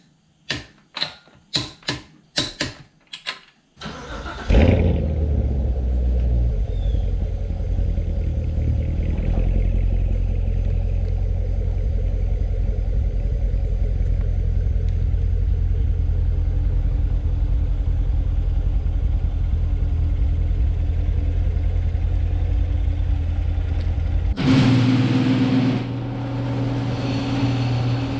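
Ratchet of a torque wrench clicking about three times a second on the lug nuts, then the C7 Corvette Grand Sport's V8 starting with a sudden loud flare and settling into a steady idle. Near the end the engine note changes and gets louder as the car moves.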